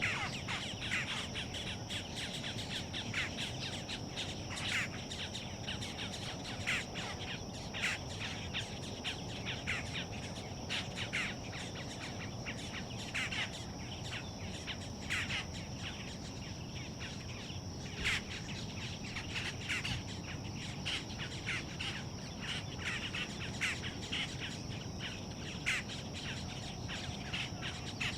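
Wild birds chirping and calling in short, irregular notes, over a steady high-pitched insect drone.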